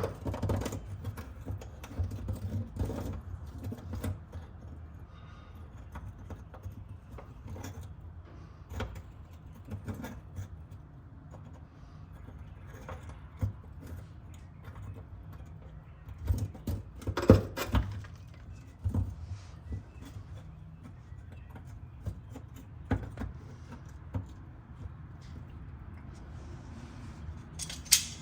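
Hand tools clinking and knocking against metal parts while a car part is worked loose, in irregular sharp clicks with a burst of louder knocks about two-thirds of the way through, over a low steady hum.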